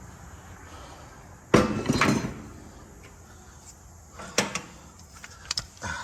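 A few knocks and clunks of objects being handled, the loudest a short clatter about a second and a half in, then three or four sharper single knocks later on.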